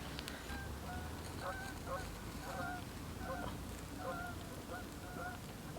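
Waterfowl honking: a run of short, repeated calls, about one or two a second.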